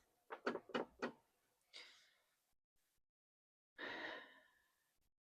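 Four or five quick light knocks within about a second, then two short rustling noises, as of sewing tools and fabric pieces handled on a work table.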